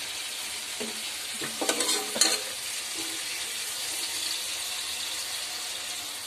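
Sliced onions sizzling in hot oil in a kadai as they are sautéed toward golden brown, stirred with a spatula that scrapes and clatters against the pan, loudest about two seconds in.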